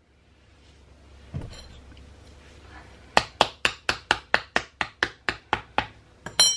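A metal spoon tapping quickly on a plastic bath bomb mould, about a dozen sharp taps at roughly five a second, then the spoon put down on a granite worktop with a short metallic ring. A single soft knock comes about a second and a half in.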